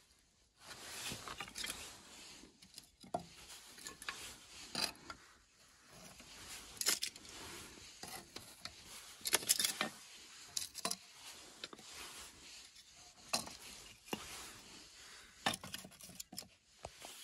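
Split pine kindling sticks being handled and stacked into a wood stove: a string of light wooden clacks and knocks, with scraping and rustling between them.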